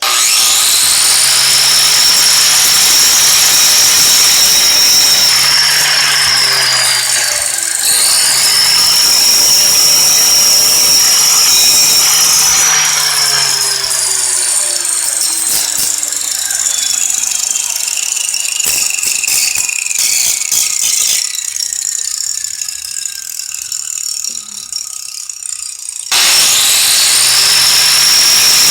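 A handheld electric power tool's motor spins up and runs with a loud high whine. About eight seconds in it bogs down briefly and recovers, then its pitch sags slowly over the next dozen seconds as if under load. It stops near the end and starts straight up again.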